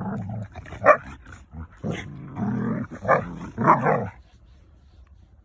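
German shepherd dogs growling and snarling in a scuffle, with sharp barks or yelps breaking out three times, stopping about four seconds in.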